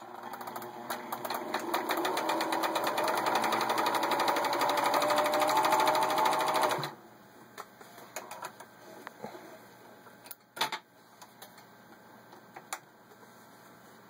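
Pfaff 297-1 sewing machine stitching a decorative pattern stitch: the motor builds up over the first couple of seconds to a fast, even needle clatter, then stops abruptly about seven seconds in. After that, only quiet handling of the cloth and a few sharp clicks.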